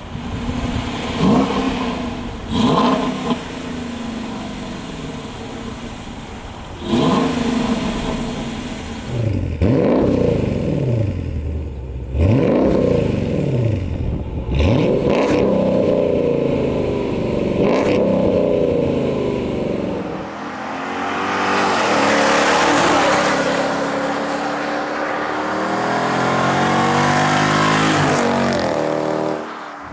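Dodge Durango 5.7-litre Hemi V8 breathing through aftermarket stainless steel long-tube headers and exhaust, revved in a series of quick blips that rise and fall sharply. Then, for the last third, it accelerates hard, its pitch climbing for several seconds.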